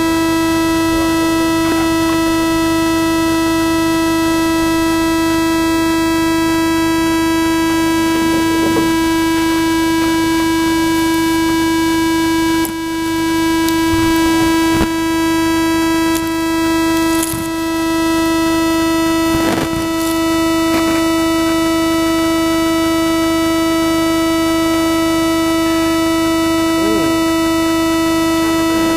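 A loud, steady buzzing tone at one fixed pitch with many overtones, unchanging throughout. It is an audio glitch from a corrupted and repaired camera recording, not a sound from the scene. A few faint knocks sit beneath it.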